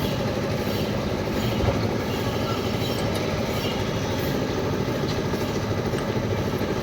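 Engine-driven construction machinery running steadily, a dense low rumble with a fast, even pulse.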